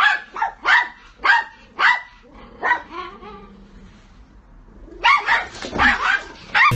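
A dog barking in short, sharp barks: a run of about six in the first three seconds, a pause of about two seconds, then another quick run near the end.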